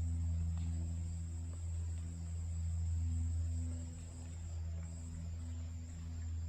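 Woodland ambience: a steady low hum under faint insect noise, with a few faint scattered ticks.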